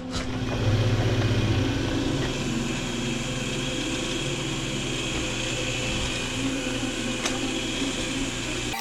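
Electric polishing buffer motor running steadily while a small steel pipe-and-cap end cap is buffed toward a mirror finish. The sound swells about a second in.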